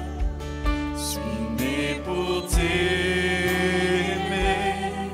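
Worship band playing a praise song: acoustic guitar, bass, keyboard and electronic drums, with a few low kick-drum beats and sustained sung notes over the chords.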